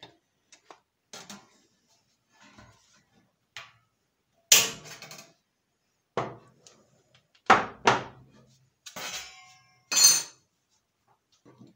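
Thin sheet metal being handled and cut with tin snips on a tabletop: a series of sharp metallic clicks and clanks, the loudest about four and a half seconds in and again near the end.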